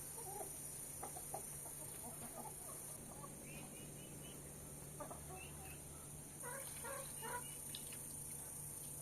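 Chickens clucking faintly in short, scattered calls, with higher chirps now and then, over a steady high hiss.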